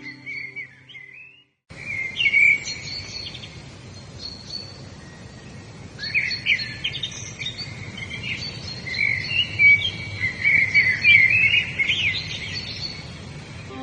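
Several songbirds chirping and warbling over a steady background hiss. A brief dropout to silence comes about a second and a half in; the singing grows busier in the second half.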